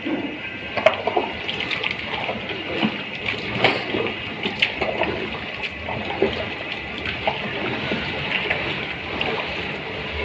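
Wet squishing and slapping as pieces of fish are mixed by hand in a thick marinade or batter, with many small irregular squelches.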